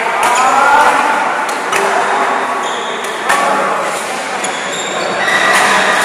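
Badminton hall ambience: a few sharp knocks of shuttlecocks being hit, and short high squeaks of court shoes on the court mat, echoing in the large hall.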